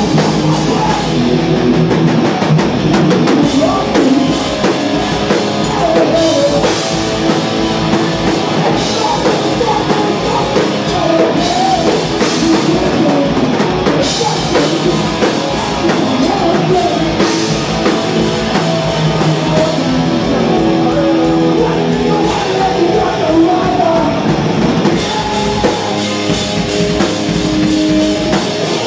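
Live rock band playing loud and fast: distorted electric guitars, a driving drum kit and a singer on a microphone, with no pause.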